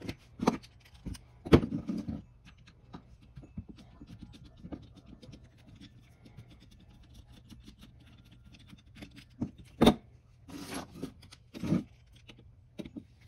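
Screws being taken out of a DFC328 carburetor with a screwdriver: faint scraping and ticking of the tool and small metal parts, broken by a few sharper clicks and knocks, the loudest about ten seconds in.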